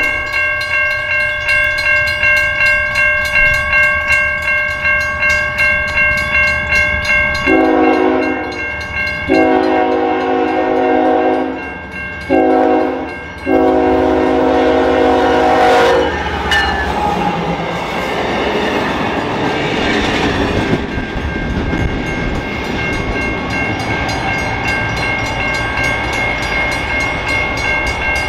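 Grade-crossing warning bell dinging about twice a second throughout, while the approaching CSX diesel locomotive blows the standard crossing signal on its multi-chime air horn: long, long, short, long, starting a few seconds in. After the last blast the train rumbles past with engine and wheel-on-rail noise, the bell still ringing.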